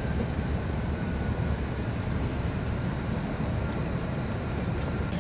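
Steady low outdoor rumble with a faint thin high whine over it that stops shortly before the end.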